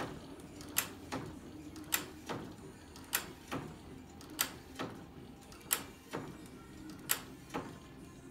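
6 hp Field Brundage sideshaft hit-and-miss engine turning over, its valve gear and ignition mechanism clicking in regular pairs, one louder click and a softer one just after, about once every second and a quarter. The pairs come slightly further apart as it goes on, so the engine is slowing a little.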